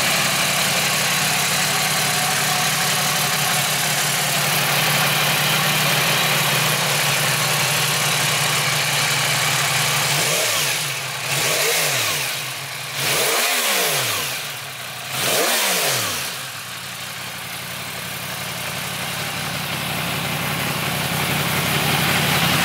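Yamaha R1M's crossplane inline-four engine idling steadily, with several quick throttle blips about halfway through, each rising and falling in pitch.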